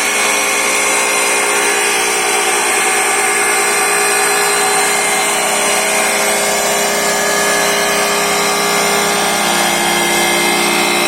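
Sepnosing woodworking machine running steadily: a loud, continuous machine hum with several held tones over a bright rushing noise.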